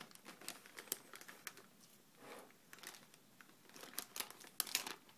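Clear plastic spice packet crinkling as it is squeezed and worked open: an irregular run of sharp little crackles, thickest and loudest near the end.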